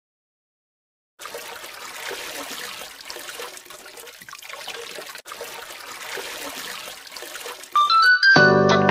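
Water splashing from the spout of a hand pump as its handle is worked, starting about a second in. Music comes in near the end.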